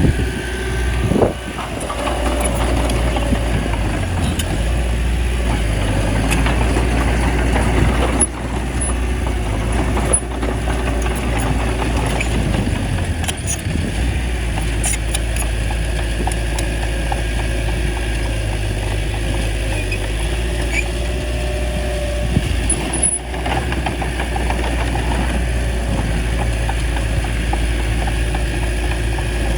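Small bulldozer's diesel engine running, a steady deep rumble with a faint whine above it at times.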